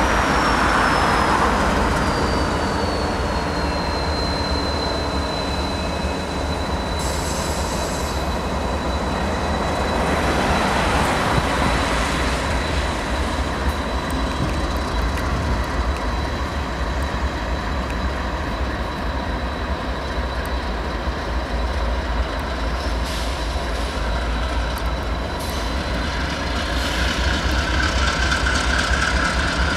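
Union Pacific diesel-electric freight locomotives running as they pass, a steady heavy engine rumble with rail noise. A thin high squeal falls in pitch over the first few seconds and then holds steady.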